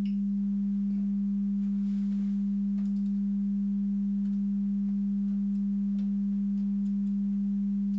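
Steady 200 Hz sine test tone from an audio oscillator, played back through a digital mixing console while driven hot, at about 5 volts, into its mic preamps. A faint overtone sits an octave above, and there are a few faint clicks.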